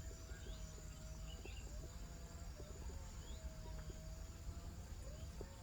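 Faint outdoor ambience with small birds giving short chirps every second or so over a steady high insect trill.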